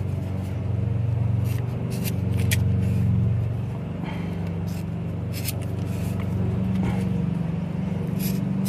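A lawn mower engine running steadily, its drone swelling and easing, with a handful of sharp scissor snips and clicks close by.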